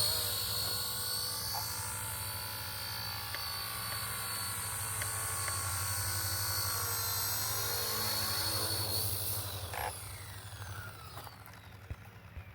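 Radio-controlled model helicopter running with a steady high whine from its motor and rotors. About nine seconds in, the pitch falls and the sound fades as it winds down.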